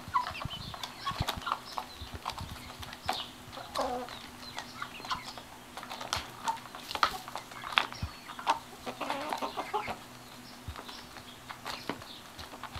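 Several hens pecking brood out of a frame of beeswax comb: many quick taps and clicks of beaks on the wax and wooden frame, with short soft clucks among them.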